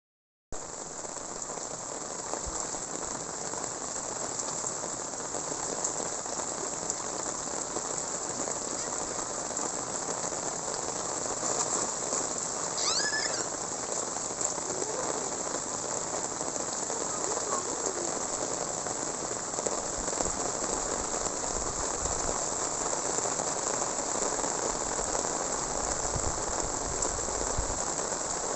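Steady rain falling, a continuous even hiss of drops on surfaces. Near the middle a short high call falls quickly in pitch.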